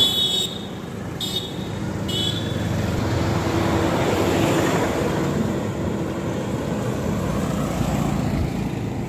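Road traffic passing close by: a truck and a motorcycle go past, the noise swelling to its loudest about halfway through and then slowly fading. A horn beeps three short times in the first couple of seconds.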